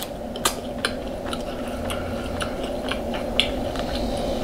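Close-miked eating: a string of small clicks and smacks of chewing, over a steady low background hum.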